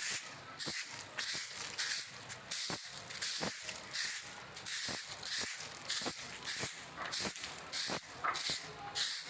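Straw broom sweeping a concrete floor: short scratchy swishes, about two strokes a second.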